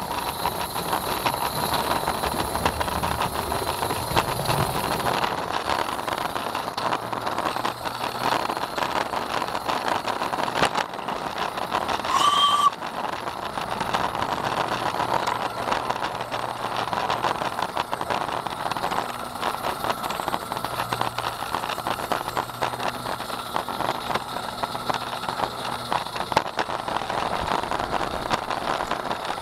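A 16mm-scale garden-railway train running along SM32 track, heard from on board: a steady rattle of wheels with many small clicks over the rail. A brief high tone sounds about twelve seconds in.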